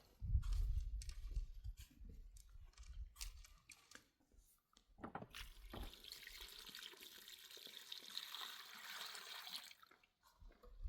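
Water poured in a steady stream for about four seconds, starting about halfway through. Before it come low rumbling and a few scattered knocks.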